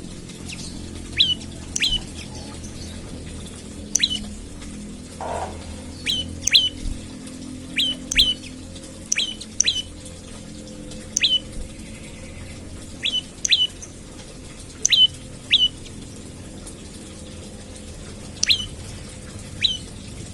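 Prenjak lumut calling: short, sharp down-slurred chips, mostly in pairs, repeated every second or two over a low, steady background hum.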